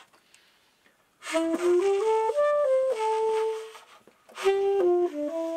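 Solo saxophone playing a slow melody: after about a second of silence, notes climb step by step to a held note, then after a short breath a new phrase begins.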